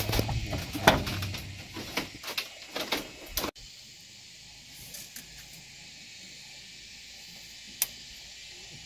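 Irregular knocks and scraping from hand tools working a wooden pole. After about three and a half seconds the sound cuts off to a faint steady hiss, with a single click near the end.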